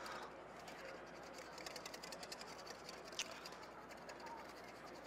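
Wire whisk beating hollandaise in a stainless bowl set over a pot, its tines ticking rapidly against the metal, with one sharper clink about three seconds in.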